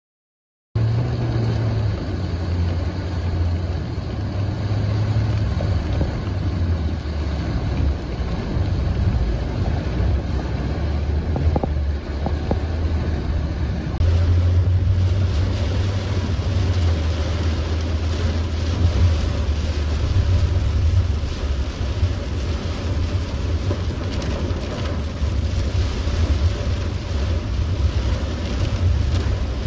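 Heavy rain pelting a car's windshield and roof, heard from inside the cabin over a steady low rumble of the moving car. The downpour grows a little louder and fuller about halfway through.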